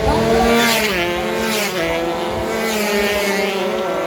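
Several racing engines running at high revs at once, their pitch dropping in steps about a second and two seconds in.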